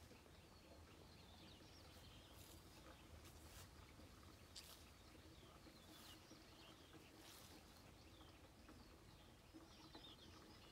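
Faint birdsong: small birds chirping and twittering, with a few sharp high calls, over a low steady rumble.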